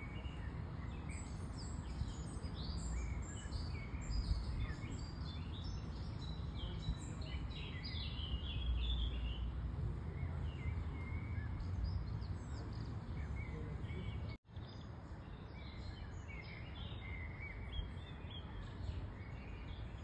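Several small birds chirping and singing in short, scattered calls over a steady low outdoor rumble. The sound cuts out for an instant about two-thirds of the way through.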